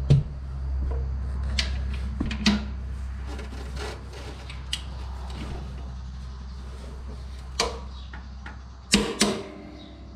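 Torque wrench and socket working the lower lift link bracket bolts of a compact tractor: scattered sharp metal clicks and knocks, with two louder clicks close together near the end, over a steady low hum.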